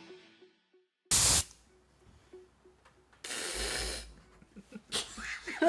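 Two short bursts of hissing noise, the first brief and loud, the second longer and softer, then a woman starting to laugh at the very end.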